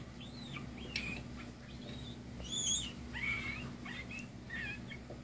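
Baby teacup Yorkshire terrier puppy giving a string of short, high-pitched squeaks and whimpers, the loudest about two and a half seconds in. A steady low hum runs underneath.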